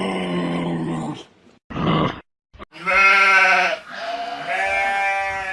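Livestock bleating, about four calls in a row. The loudest call comes about three seconds in, followed by a long, drawn-out one.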